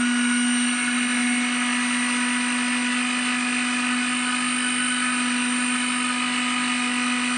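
Electric mixer grinder running steadily, a motor whine with a steady hum, grinding coriander, mint, green chillies, garlic and ginger with a little water into a wet chutney paste.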